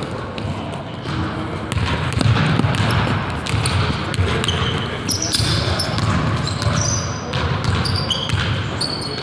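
Basketball bouncing and being dribbled on a hardwood gym floor, with short high-pitched sneaker squeaks in the second half.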